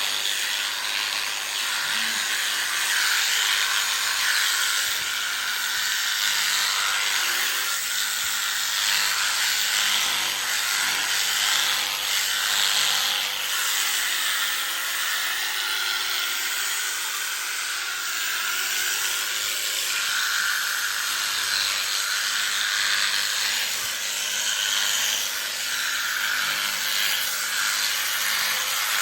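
Electric sheep-shearing clippers running steadily as they shear a sheep's fleece.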